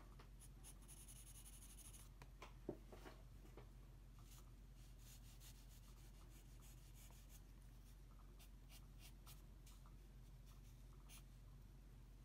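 Faint scratching of a pencil on drawing paper in short shading strokes, over a low steady hum.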